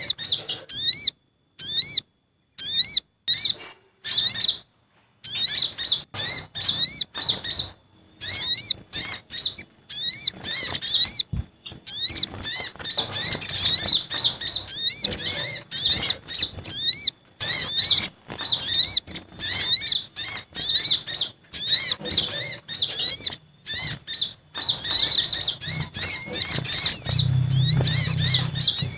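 Sunbird lure calls: quick series of sharp, high chirps from sogok ontong and kolibri ninja sunbirds calling noisily, the agitated calls used to draw these birds in. The chirps come in short bursts with gaps at first and run almost without a break through the second half.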